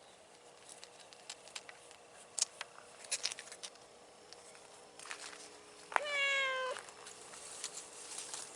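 A cat gives one meow about six seconds in, lasting just under a second and falling slightly in pitch. Scattered sharp clicks and rustles come a few seconds before it.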